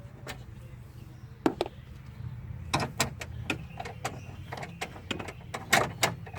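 Scattered sharp clicks and knocks of parts being handled and unplugged inside an SUV's door, over a steady low hum.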